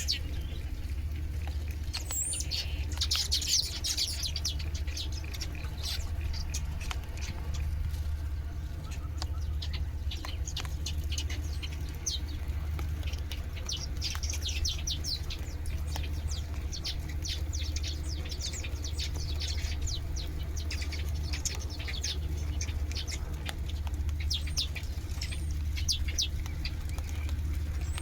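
Small birds chirping, many short, quick calls overlapping and repeating, over a steady low hum.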